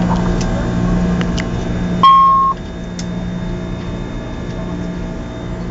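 Steady hum of the Airbus A300 flight deck in the climb, with a few faint clicks. About two seconds in, a single loud electronic beep sounds for about half a second, and the hum drops noticeably after it.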